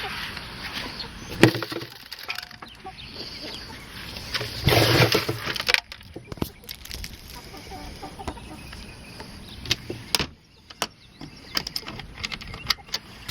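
Backyard chickens clucking, with scattered sharp knocks and a louder, noisy burst about five seconds in.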